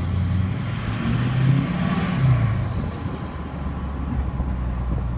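Straight-piped LMM Duramax 6.6 L V8 turbo-diesel in a GMC Sierra 3500HD revving up and dropping back, its turbocharger whistle climbing high as the engine rises and then sliding down as it spools down over a couple of seconds.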